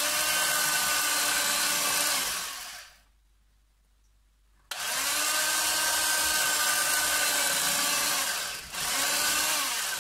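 Electric carving knife cutting through a crusty loaf of country bread: a steady motor buzz that runs three times, for a few seconds, then after a pause for about four seconds, then briefly again near the end, dropping in pitch each time it is switched off.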